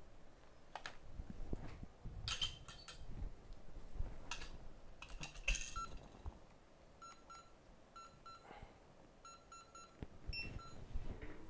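A few clicks and knocks of things being handled on a workbench, then a string of short electronic beeps, some in pairs and some in quick runs, like button presses on the control panel of a piece of bench equipment.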